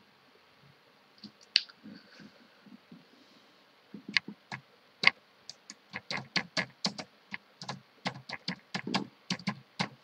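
Computer keyboard typing: a few scattered clicks, then a quick run of keystrokes from about four seconds in, roughly four a second, as a message name is typed.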